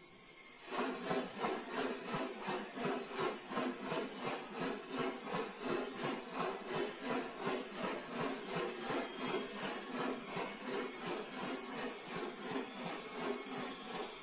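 Steady high insect drone with an even pulsing sound, about two or three pulses a second, starting just under a second in.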